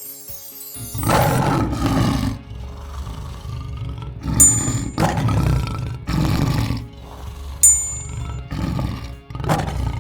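A large animal roaring in a series of about five loud bursts, with two short bright chime dings about four and a half and seven and a half seconds in.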